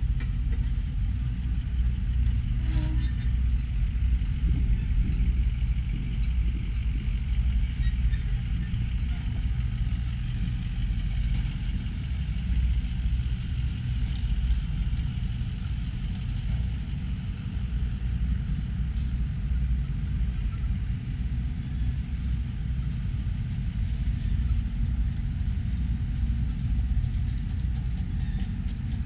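Steady low rumble of idling vehicle engines, even throughout with no sharp events.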